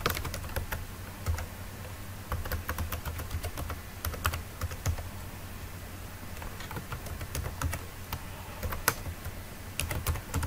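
Typing on a computer keyboard in quick bursts of keystrokes with short pauses between them, as a phone number and then an email address are entered into a web form.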